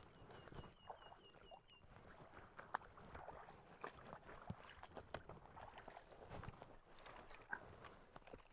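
Near silence: faint outdoor ambience with scattered small ticks and rustles, and a quick run of high, evenly spaced chirps in the first two seconds that returns faintly near the end.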